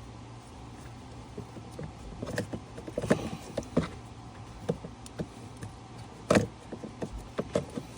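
Irregular plastic clicks and knocks as the HVAC blend door actuator and dash parts are handled and worked into place by hand. The loudest is a sharp knock about six and a half seconds in, and a faint steady low hum sits underneath.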